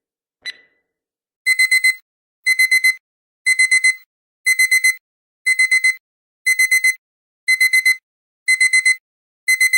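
A countdown timer ticks once more, then its digital alarm goes off about a second and a half in. The alarm beeps in quick bursts of four, one burst every second, all on the same high pitch.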